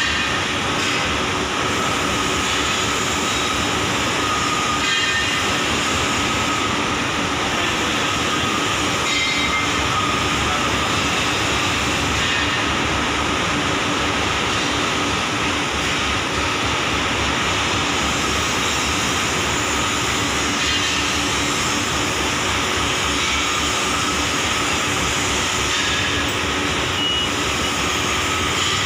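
A 2-metre cylindrical grinding machine running steadily: a continuous mechanical noise with a faint low hum and a faint higher whine held throughout.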